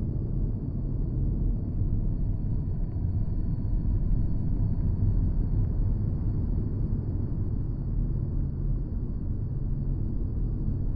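Sci-fi alien-landscape ambience: a steady deep drone with a faint, thin high tone held above it.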